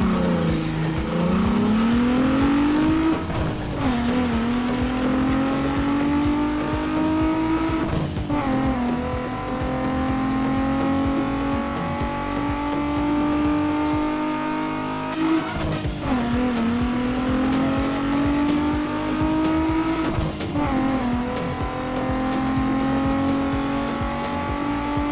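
Car engine accelerating through the gears: its pitch climbs for about four seconds, then drops at each shift and climbs again, over and over.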